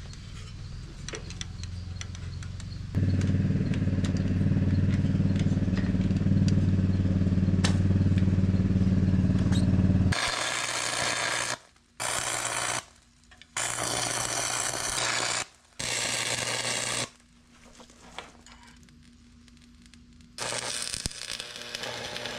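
Electric arc welding on a steel log splitter frame: a loud steady low hum for several seconds, then four short bursts of crackling arc about a second each with pauses between them, and another burst near the end.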